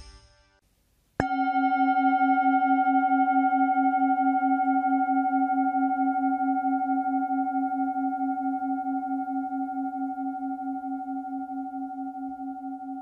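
Singing bowl struck once about a second in, then ringing on in several steady tones with an even wobble of about four pulses a second, slowly fading.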